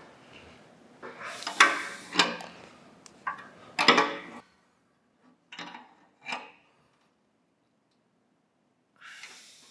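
Steel open-end wrench clinking against square-headed bolts as they are tightened down on a cast-iron bandsaw table's trunnion. There is a cluster of sharp metal clanks with short ringing in the first few seconds, then two lighter clicks around the middle.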